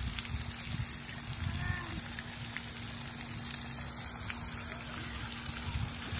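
Pond aerator fountain spraying: a steady hiss of falling water, with uneven low rumbling on the microphone and a steady low hum underneath.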